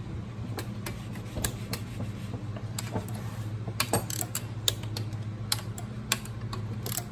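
Ratchet of a torque wrench clicking in short, irregular runs as the cylinder-head bolts of a Yanmar 3JH3E marine diesel are tightened down, over a steady low hum.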